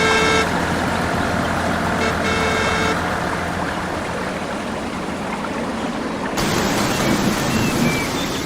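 Steady engine-like running noise with a horn tooting twice: once at the start and again about two seconds in, each lasting under a second. The sound changes abruptly about six seconds in.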